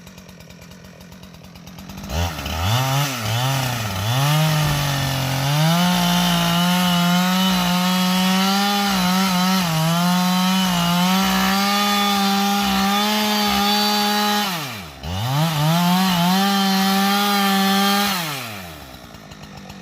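Two-stroke chainsaw on an Alaskan chainsaw mill ripping lengthwise through a pine log. It idles, opens up to full throttle about two seconds in, wavers, then settles to a steady high pitch under the cut. It drops off briefly about fifteen seconds in, revs back up, and falls back toward idle near the end.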